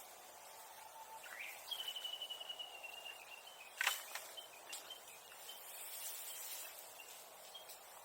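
Bonfire burning with a steady hiss, a single sharp crack about four seconds in, and before it a high, pulsing whistle lasting about two seconds that rises at its start and then falls slightly in pitch.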